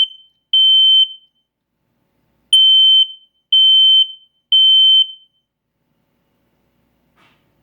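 X-Sense combination smoke and carbon monoxide detector sounding its test alarm: loud, high-pitched half-second beeps in sets of three, the three-beep smoke alarm pattern. The last beep of one set comes just after the start, and after a pause a full set of three follows, stopping about five seconds in.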